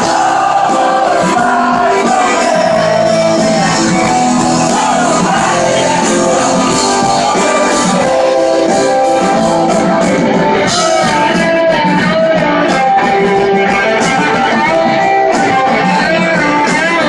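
Live rock band playing, with guitars and singing.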